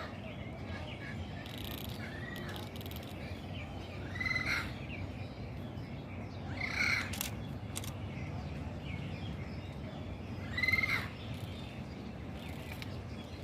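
Parrot calling: three short, loud squawks a few seconds apart, with fainter chirps between them.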